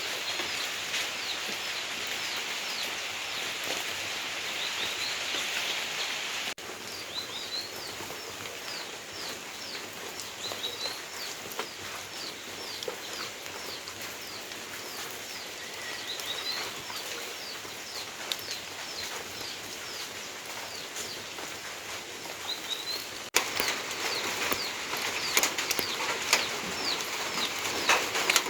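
Steady hiss of rain with small birds chirping over it again and again in short, high calls. The rain hiss drops suddenly about six seconds in and swells again near the end.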